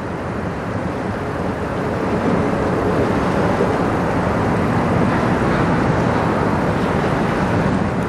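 Steady rushing noise that grows slowly louder over the first few seconds.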